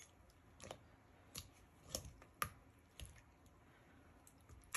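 Wire hand whisk beating a block of cream cheese in a glass bowl: faint soft squishing with a sharp click of the wires against the glass about twice a second.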